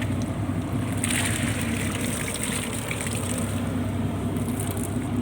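Purse-seine fishing boat's engine running steadily, with water splashing and pouring over it from about a second in.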